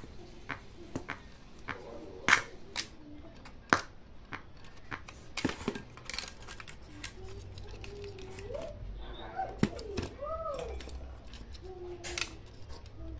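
Irregular sharp clicks and light knocks of an amplifier circuit board and its cables being handled and turned over on a workbench.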